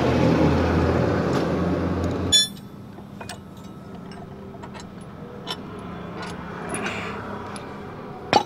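A loud, steady rumble for the first two seconds, cut off suddenly, then light metallic clicks and clinks of a spanner and steel bolts as bolts are undone on the weeder's rear mounting bracket.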